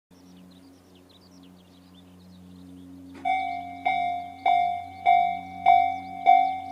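Japanese level-crossing electronic warning bell, Tobu's slow-tempo 'C' tone, starting about halfway through and striking a ringing ding a bit under twice a second, six strikes in all: the crossing has activated for an approaching train. Before it starts, small birds chirp.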